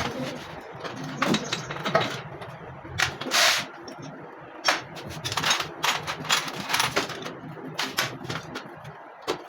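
Irregular sharp clicks, taps and short scrapes of hand tools and metal parts being handled during motorcycle engine fitting work.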